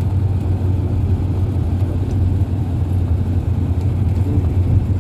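Long-distance bus heard from inside the passenger cabin: a steady, loud low drone of engine and road noise.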